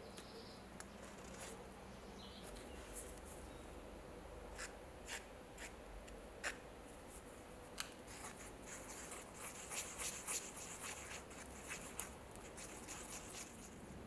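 Faint, scattered clicks and light scraping that thicken in the second half into a quick run of scratchy ticks: a small stick stirring epoxy and sawdust together into a wood-filler paste on sandpaper.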